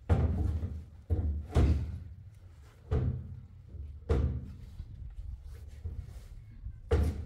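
A series of about six heavy thuds at uneven intervals, each a sudden impact with a deep low thump.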